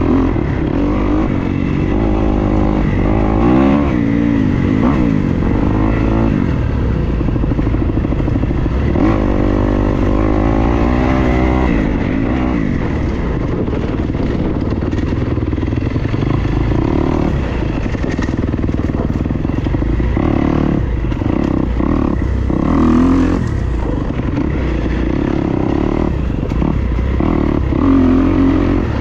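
Dirt bike engine revving up and down as it is ridden along a trail, its pitch rising and falling again and again with throttle and gear changes.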